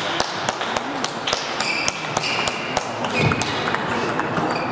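Table tennis ball clicking sharply and irregularly against bats and table during a rally, with clicks from games on neighbouring tables in a large hall.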